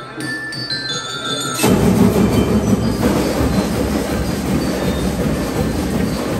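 A marching drum corps: light bell-like melody notes at first, then about a second and a half in the snare and bass drums all come in at once and keep playing loudly.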